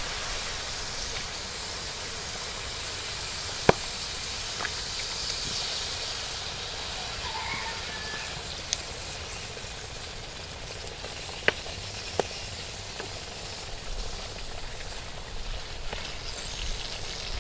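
Quicklime slaking in water in a steel basin, a steady hissing fizz as the lime reacts and heats the water to a boil. A few sharp single clicks stand out, about four seconds in and twice around eleven to twelve seconds in.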